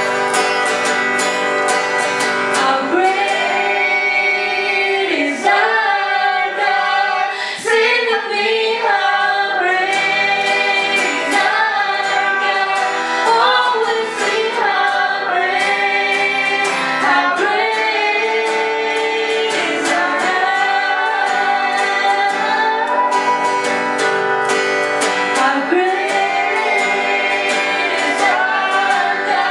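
Woman singing a praise song into a microphone, accompanying herself on a strummed acoustic guitar.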